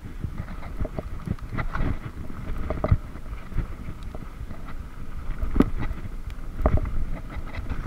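Mountain bike riding over a bumpy dirt trail, heard from a camera mounted on the handlebar: a steady low rumble of wind and tyres with frequent irregular knocks and rattles as the bike jolts over the ground.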